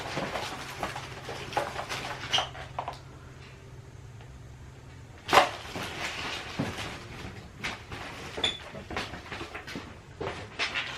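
Belongings being rummaged through and handled: scattered knocks, clicks and rattles of objects being moved, with one sharp, loud knock about five seconds in. A steady low hum sits under the first half.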